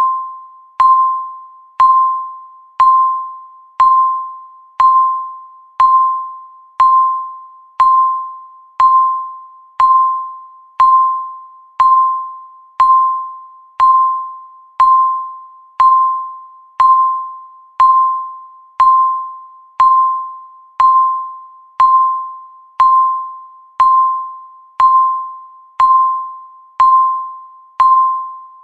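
Countdown timer beep: a single mid-pitched electronic tone sounding once every second, each beep starting sharply and fading away before the next, marking the seconds ticking down.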